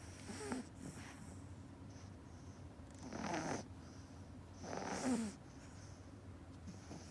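A sleeping pug puppy snoring. Its breaths come every couple of seconds, the louder ones about half a second, three seconds and five seconds in, some with a short falling squeak.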